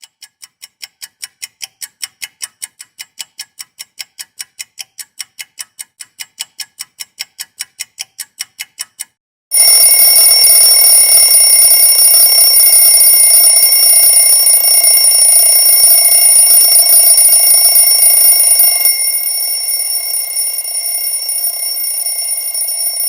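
A clock ticking about four times a second, then an alarm clock suddenly ringing, loud and steady. The ringing drops in level a few seconds before the end.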